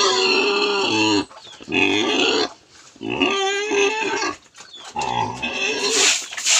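Domestic pig squealing: four drawn-out squeals of about a second each, with short breaks between them.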